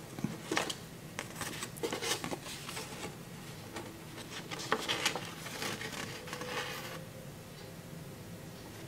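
A small folded paper leaflet being handled, turned over and unfolded: light paper rustles and a scattered few soft ticks and rubs.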